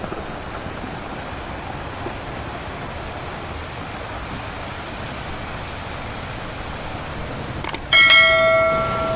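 Steady wash of ocean surf. Near the end come a couple of quick clicks, then a loud bell chime that rings on and slowly fades, like a subscribe-button notification bell sound effect.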